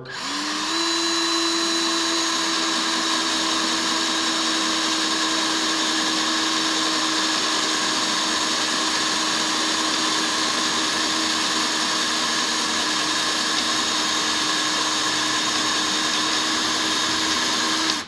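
Cordless drill running at a steady speed as its bit cuts into the head of a rivet. The motor spins up in the first second, holds one constant pitch and stops right at the end.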